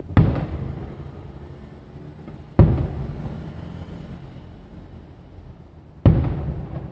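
Three booms of aerial firework shells bursting, near the start, about two and a half seconds in and about six seconds in, each trailing off in a rolling rumble.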